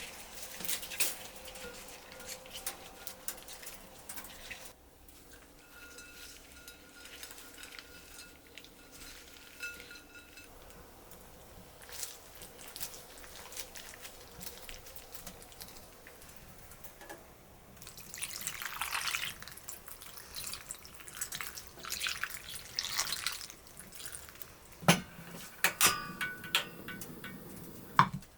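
Small clinks of dishes and utensils, with water running in two short spells about two-thirds of the way through.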